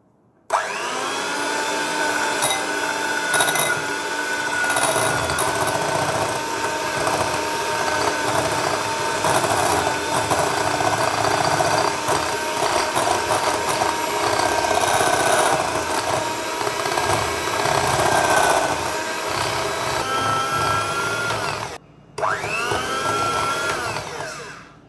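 Electric hand mixer beating butter in a glass bowl. The motor whines up to speed about half a second in and runs steadily for about twenty seconds, cuts out briefly near the end, then starts again and winds down.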